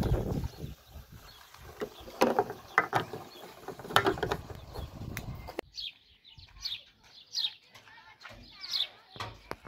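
Plastic jerrycans being handled while a hose fills them: several sharp hollow knocks and clicks. After about five and a half seconds this gives way to small birds chirping in quick, repeated falling notes.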